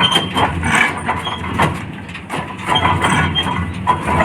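Heavy diesel machinery at a mud-loading site running steadily, with irregular knocks and clatter.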